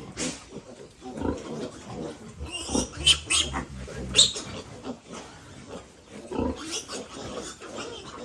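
Pigs grunting irregularly, with a few short, sharp, louder sounds about three and four seconds in.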